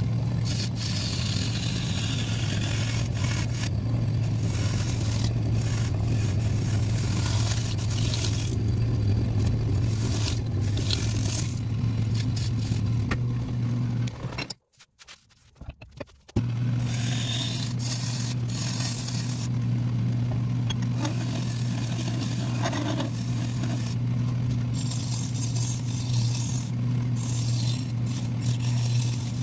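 Wood lathe motor running with a steady hum while a turning gouge scrapes and cuts the outside of a spinning Sissoo (Indian rosewood) bowl blank. The sound drops out for about two seconds midway, then resumes.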